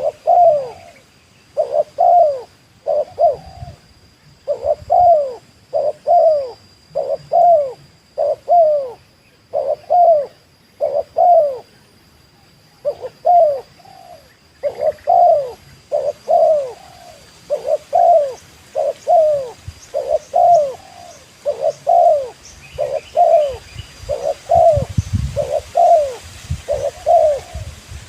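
Spotted dove (tekukur) cooing over and over: short coo notes that rise and fall in pitch, in groups of two or three with brief gaps. Some low rumbling joins in near the end.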